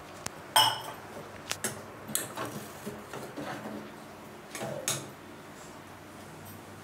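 Stainless-steel kitchenware clinking and knocking a handful of times, the loudest about half a second in with a short metallic ring.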